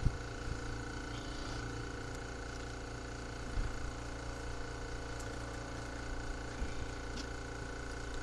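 Small air compressor running with a steady electric-motor hum, with a few faint ticks.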